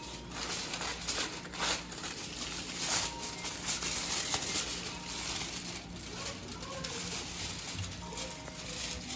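Aluminium foil crinkling and rustling in irregular bursts as it is peeled back off a tray of roasted chicken.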